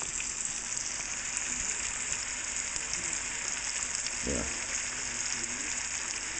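Pork steak frying in oil in a hot pan, a steady crackling sizzle as its freshly turned side browns.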